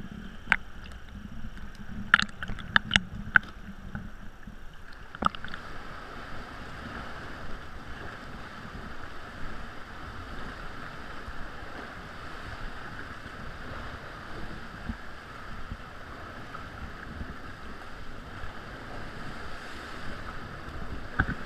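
Kayak being paddled on the sea: water sloshing and rushing along the hull in a steady wash, with a few sharp taps in the first five seconds.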